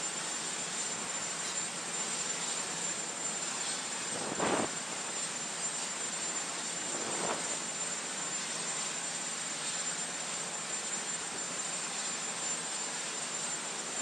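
Steady aircraft engine noise, an even rush with a thin high whine over it, swelling briefly about four and a half seconds in and again, more weakly, about seven seconds in.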